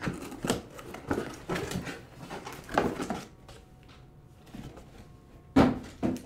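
Cardboard Priority Mail box being torn open by hand and its contents pulled out: a run of irregular tearing and rustling noises, a quieter lull, then one louder rip near the end.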